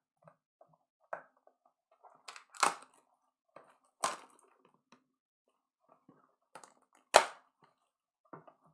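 Trading card boxes and packs being handled and opened by hand: scattered crinkles and sharp clicks of cardboard and wrapper, the loudest about two and a half, four and seven seconds in.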